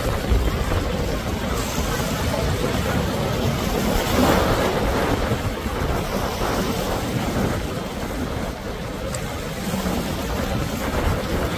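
Motor cruiser running at speed through choppy inlet water: a steady mix of engine rumble and rushing wake, with wind buffeting the microphone.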